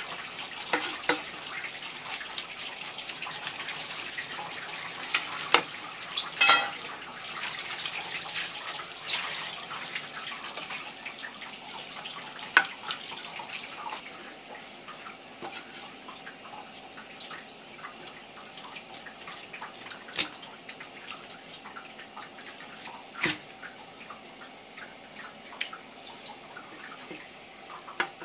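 Water from a tap running over a whole isaki (chicken grunt) as it is rinsed and rubbed by hand on a wooden cutting board. The flow sounds quieter about halfway through. Scattered sharp knocks and clicks come from handling the fish on the board.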